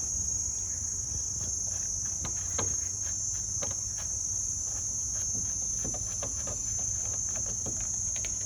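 Steady high-pitched chirring of crickets, with scattered light clicks and taps of handling.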